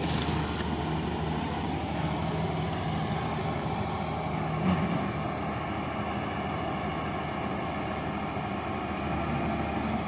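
Combine harvester's diesel engine running steadily as the machine drives across the wheat field, a continuous low mechanical hum, with a brief sharp click about halfway through.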